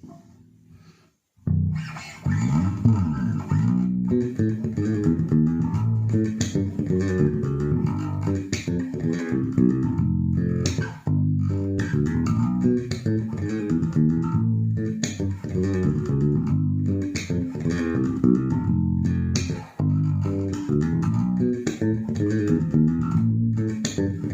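Aquilina Shelby 5 five-string electric bass with Nordstrand pickups, played solo through a Warwick LA 500 bass amp and an Eden 2x12 cabinet. It starts about a second and a half in and runs a continuous line of plucked notes with sliding pitches near the start.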